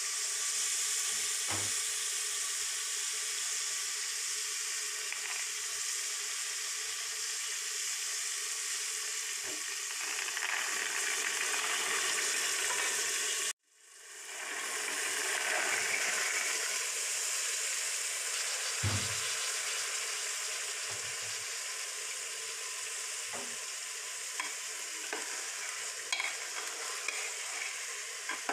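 Onion-and-spice masala with chickpeas sizzling in oil in a pan while being stirred, with a few spoon knocks and small ticks against the pan. The sound cuts out suddenly about halfway and fades back in over a second.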